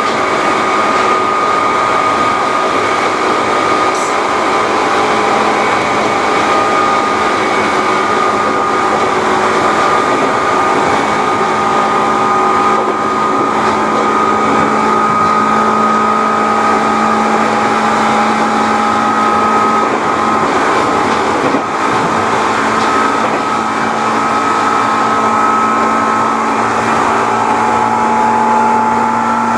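A Seibu New 101 series electric train running along the line, heard from the cab of its motor car. The very loud whine of its traction motors holds several steady tones that drift slightly in pitch, over the continuous rumble of wheels on rail.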